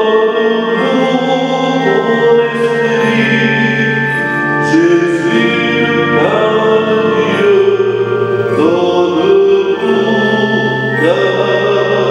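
Church hymn sung with instrumental accompaniment: a slow melody of long held notes, the voice sliding up into several of them.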